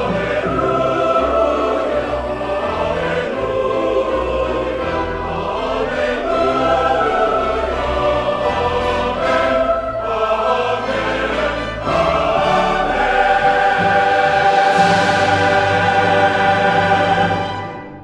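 Choir singing with orchestral accompaniment, building to a long held final chord that dies away just before the end.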